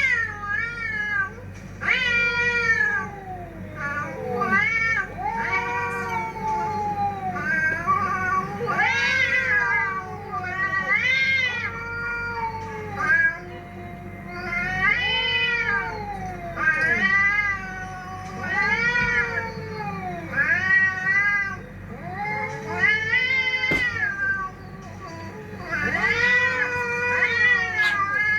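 Domestic cat meowing and yowling over and over: a string of drawn-out calls, each rising and then falling in pitch, with short gaps between them.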